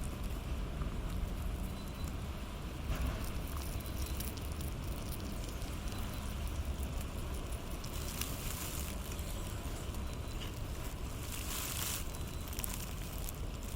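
Guinea pigs munching and rustling through their food: fine crackly chewing and rustling that comes and goes, busier in two spells in the second half, over a steady low rumble.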